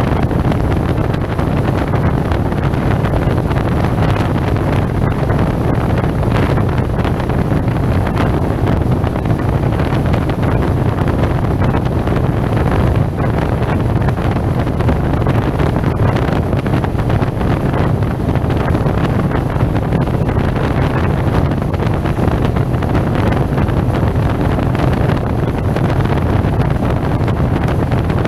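Wind rushing over a helmet-mounted camera microphone on a moving SYM Maxsym TL 508 maxi-scooter, with the scooter's engine running underneath at a steady cruise. It is a dense, even rumble with no changes.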